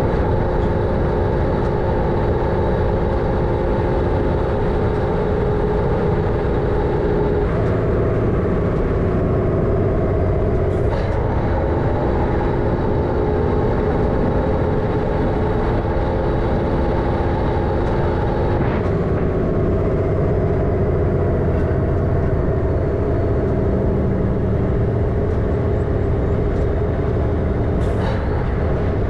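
MAN LE280B 4x4 truck's diesel engine running under way, a steady loud drone whose note shifts three times, about a quarter, a third and two-thirds of the way through. A couple of short knocks sound over it.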